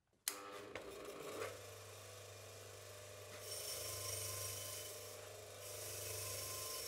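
Bench grinder with a wire wheel switched on and spinning up, then running with a steady hum. From about three and a half seconds in, the wire wheel scrubs rust off the threaded steel screw of a screw press with a loud scratchy hiss, which eases briefly about five seconds in and then resumes.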